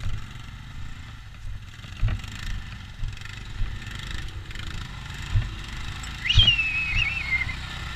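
ATV engine running at low, uneven throttle, with several sharp knocks and thuds. About six seconds in, a high squeal sounds for a little over a second.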